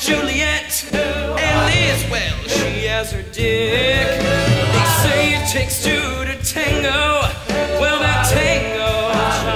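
A musical-theatre song performed live: singing with a wavering, held vocal line over band accompaniment with a steady bass.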